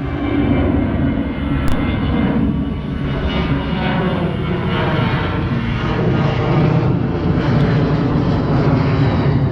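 Airplane engine noise from an aircraft flying near an airport: a loud, steady rumble with whining tones in it, swelling slightly about six seconds in.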